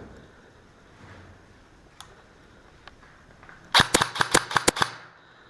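Airsoft gun firing a rapid string of about eight sharp shots in just over a second, near the end.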